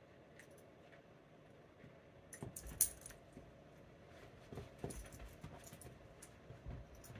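A small dog's collar tags jingling and clicking as it shifts about on the couch with a chew treat, with a few soft thumps from its movement. The loudest jingle comes a little under three seconds in, with scattered lighter clinks after.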